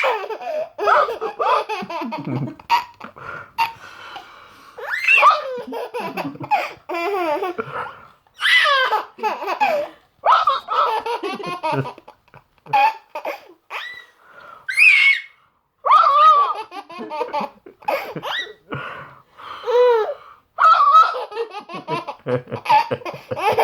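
Baby girl laughing in repeated high belly laughs and giggles, in bursts every second or two with short pauses between. The laughter is set off by an adult's hiccups.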